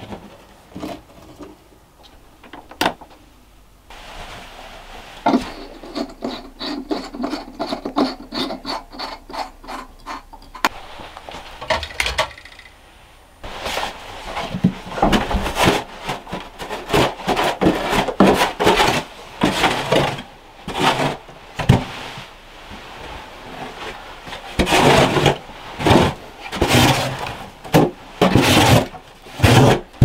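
A shovel scraping and scooping loose sandy dirt off a cellar floor, in loud, irregular strokes from a little before halfway on. Earlier comes a fast, even rasping of about three to four strokes a second.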